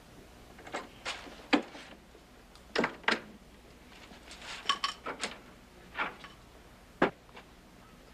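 A door opening and shutting, then a series of sharp knocks, clunks and rustles from a plastic shopping bag and things being handled and moved about, with a busy cluster in the middle and two single sharp knocks near the end.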